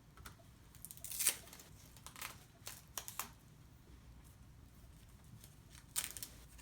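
Several short rustling and scraping handling noises in a row, the loudest about a second in and another near the end, as things are moved and handled by hand.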